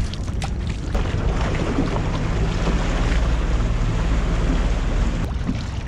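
Small aluminium boat under way: its motor running, water rushing along the hull and wind buffeting the microphone.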